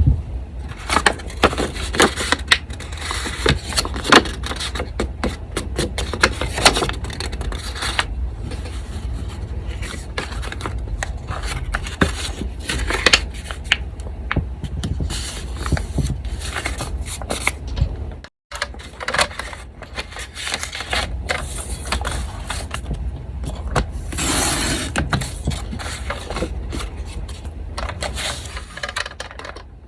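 Paper being handled on a desk: irregular scraping, rustling and small taps, with a steady low fan hum underneath. The sound breaks off for a moment about two-thirds of the way through.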